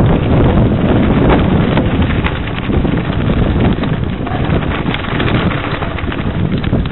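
Mountain bike rolling fast down a loose gravel trail: heavy wind buffeting on the microphone, with the tyres crunching over stones and the bike rattling in many quick, irregular clicks.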